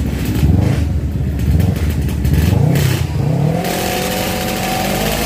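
Drag-racing motorcycle engine at the start line, blipped in short throttle revs that rise and fall. From about three and a half seconds in it becomes a steadier, fuller high-revving engine note.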